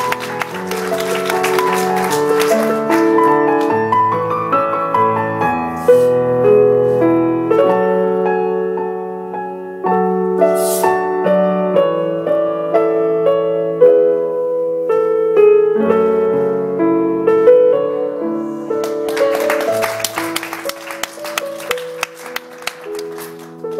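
Piano music playing, with audience clapping breaking in over it for the first few seconds and again from about nineteen seconds in.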